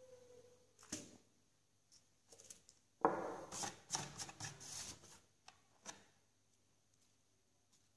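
Hands handling an opened laptop's plastic chassis, heard as scattered clicks and taps. About three seconds in there is a louder scuffing rustle lasting a couple of seconds, followed by a couple of light clicks.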